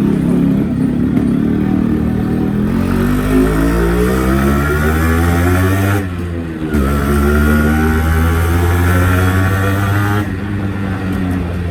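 Yamaha RX-series two-stroke motorcycle accelerating, its engine note rising in pitch, dipping briefly about six seconds in, rising again, then easing off after about ten seconds.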